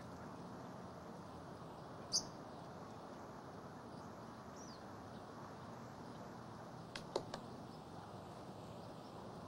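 Faint steady outdoor background hiss, with one short high bird chirp about two seconds in and two or three sharp clicks around seven seconds.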